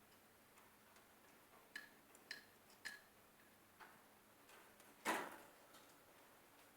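Pet parrot making three quick, faint clicks about half a second apart, each with a brief whistly ring, followed about five seconds in by one louder, harsher noise.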